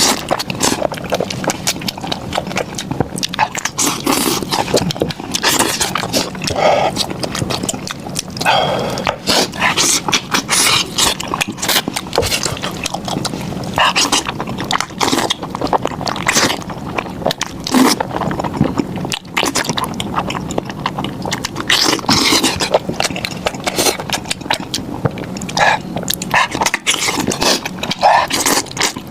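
Close-miked wet chewing and lip-smacking of a person eating beef trotter, a steady run of quick sticky clicks and smacks.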